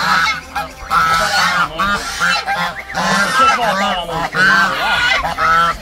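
A flock of domestic geese honking repeatedly, with many short calls overlapping.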